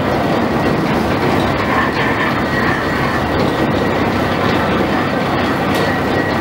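Drive machinery of an 1897 ore aerial ropeway running: large rope sheaves, belts and hauling rope driven by a 22 hp electric motor, turning with a steady mechanical rumble and rattle and a faint steady high whine.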